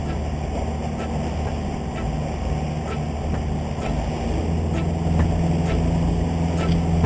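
Yamaha 150 outboard motor running steadily under way, a low drone over the rush of the wake. It grows a little louder about five seconds in, with faint ticks about once a second.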